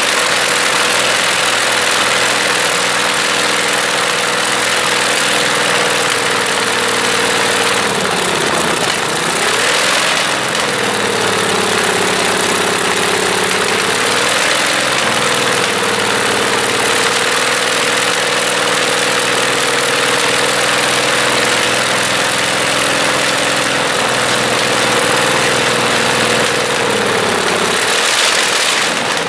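Shvetsov ASh-62 nine-cylinder radial aero engine from an Antonov An-2 running steadily on a test stand without a propeller. Its speed dips and picks up again about eight seconds in, and drops once more near the end.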